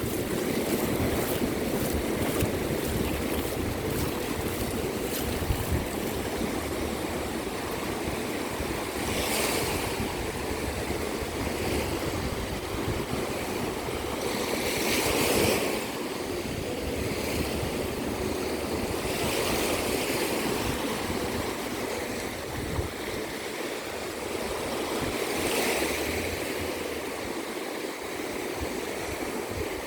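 Ocean surf breaking and washing on a beach as a steady hiss, with four louder surges of breaking waves a few seconds apart.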